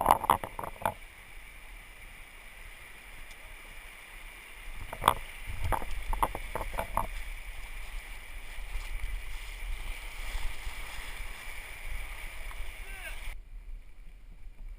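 River water running and splashing against a GoPro mounted on a raft oar, with clusters of sharp splashes or knocks just at the start and again around five to seven seconds in. Shortly before the end the sound abruptly turns muffled.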